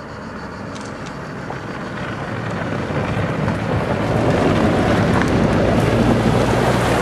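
Land Rover Discovery's turbo-diesel engine growing steadily louder as it comes along the bank and passes close, pulling a water skier, mixed with the rushing spray kicked up by the ski.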